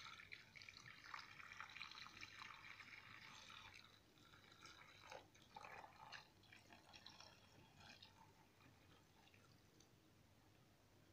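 Hot water poured from a small aluminium saucepan into a glass baking dish of chicken pieces: a faint splashing trickle for about four seconds, then a few short dribbles and drips as the pouring tapers off.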